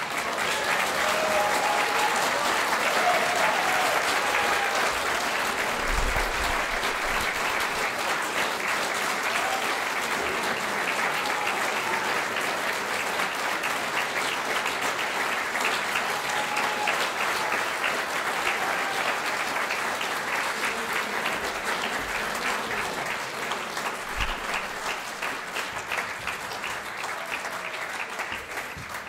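Concert audience applauding: dense, steady clapping that eases slightly near the end and then cuts off abruptly.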